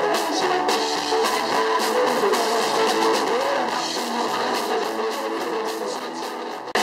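Live band music with guitar, a steady run of pitched notes over repeated hits, that breaks off suddenly near the end.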